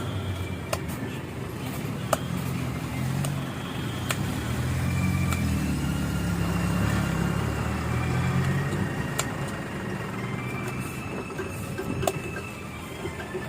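A road vehicle's engine running, its low hum rising and falling in pitch, with road noise and a few sharp clicks.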